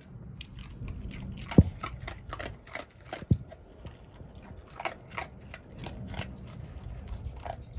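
A Jindo dog crunching dry kibble from a stainless steel bowl: irregular crunches all through, with two sharp knocks, the loudest sounds, about one and a half and three and a half seconds in.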